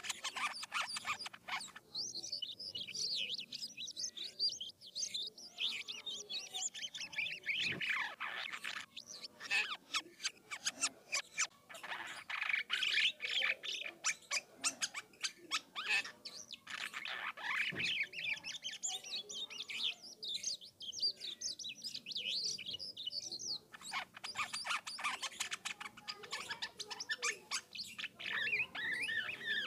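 Jalak kapas starling singing a long, varied rolling song: rapid chirps, whistled glides and clicky chatter running on without a break.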